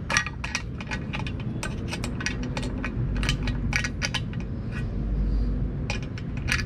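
Small metal parts clicking and clinking in quick, irregular taps as a screw and its washer are fitted and turned into a roof crossbar's bracket. There is a lull of about a second after four seconds in.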